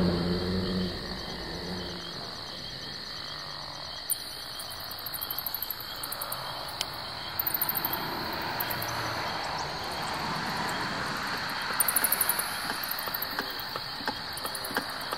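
Night insects, crickets among them, chirping in a steady high chorus, with short bursts of rapid chirps now and then.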